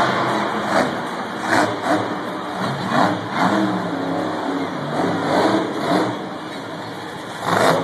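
Monster truck engine running and revving in a series of short, uneven revs, its pitch rising and falling with each one.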